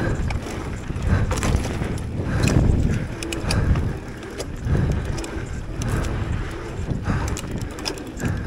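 Giant Reign mountain bike rolling down a dirt trail: tyres rumbling over the ground with frequent rattles and clicks from the bike. Its chain has just come off the chainring.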